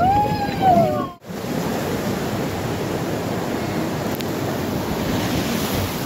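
Steady rush of river water during whitewater rafting, with some wind on the microphone. A brief rising-and-falling voice call in the first second, then the sound cuts out abruptly for a moment about a second in before the rush resumes.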